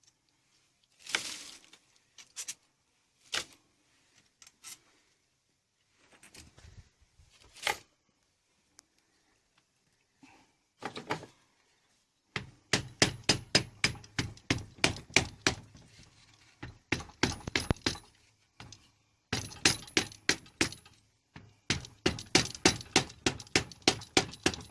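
Hand tools working metal fasteners on a motorcycle engine during a strip-down: scattered clinks and knocks at first, then from about halfway several runs of rapid, even clicking, about five or six clicks a second, like a ratchet turning bolts out.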